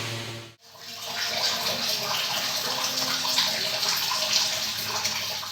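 Water running and splashing steadily. In the first half second a steady machine hum is heard, cut off abruptly.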